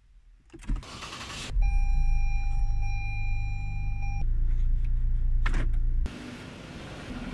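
Lexus SUV engine started with the push button: it catches about a second and a half in and runs at a fast idle, with a steady high tone sounding alongside for about two and a half seconds. The idle settles lower about six seconds in.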